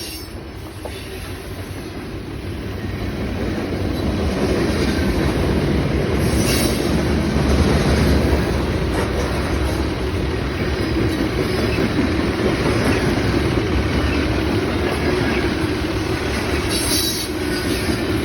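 Freight train rolling past, its steel wheels rumbling on the rails; it grows louder over the first few seconds, then holds steady and loud.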